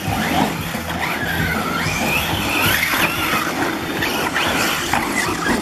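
Mojave EXB and Talion EXB electric RC cars racing on dirt, their motors whining in a pitch that keeps rising and falling as the throttle comes on and off.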